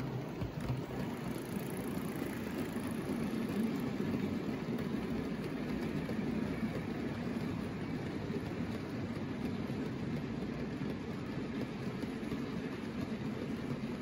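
Model train running along the track: a steady rumble of wheels on rails from a rake of MGR coal hopper wagons rolling past.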